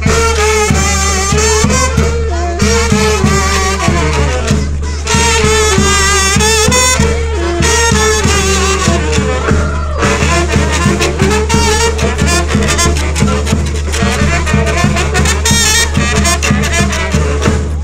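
A live band playing a lively dance tune, with brass instruments carrying the melody in phrases and drums keeping a steady beat.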